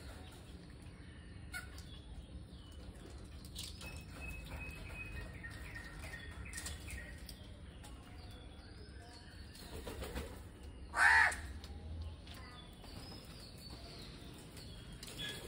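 A crow gives one loud, harsh caw about two-thirds of the way in, over the light chirping of smaller birds.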